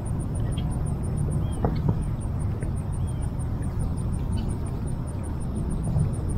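Wind rumbling on the microphone, with an insect chirping high and steady at about five pulses a second and a few faint bird chirps.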